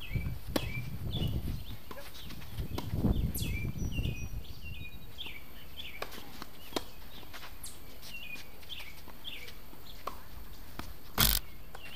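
Tennis balls struck with rackets during a point of hard-court doubles: a few sharp hits, the loudest one near the end just after a serve. Repeated short high chirps sound throughout.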